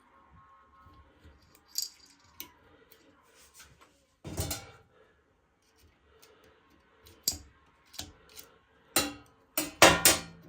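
Clicks and knocks of small hard parts and tools being handled during a washing-machine motor brush replacement. There is a short clatter about four seconds in and a quick run of louder knocks near the end.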